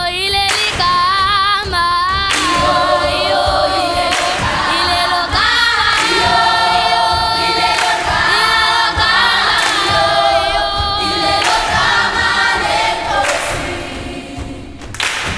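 Children's choir singing in harmony, with a thump roughly every one and a half seconds. The singing thins out near the end.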